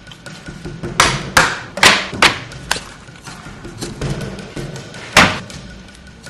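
Broad cleaver striking lamb and bone on a wooden chopping block: five quick chops a little under half a second apart, then one more a couple of seconds later.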